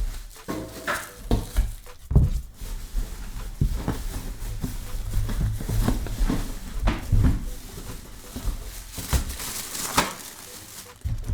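An ink-tank printer being lifted out of its cardboard box and packaging: irregular rustling and scraping, with several knocks and thumps, the sharpest about two seconds in and near the end.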